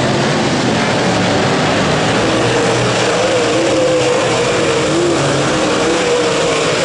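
Several dirt late model race cars' V8 engines running hard in a pack, their pitch wavering up and down as they throttle through the turn.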